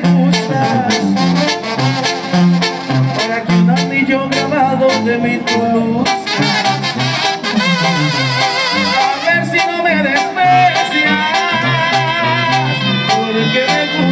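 A Sinaloan-style banda playing live: massed brass with a singer's voice over a deep, bouncing bass line and steady drum hits.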